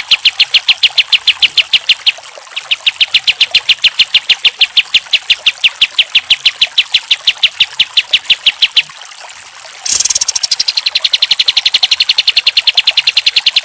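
Kapas tembak, a bulbul, singing its rapid machine-gun run of sharp repeated notes, about seven a second. The run breaks briefly about two seconds in and stops near nine seconds. After a second's pause a new run starts abruptly and the rapid notes carry on.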